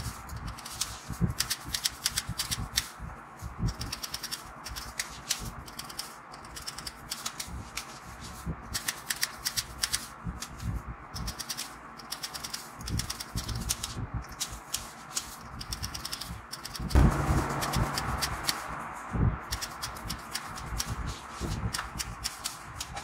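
Barber's scissors snipping hair in quick runs of crisp clicks. About three quarters of the way through, a louder rushing noise rises for a couple of seconds.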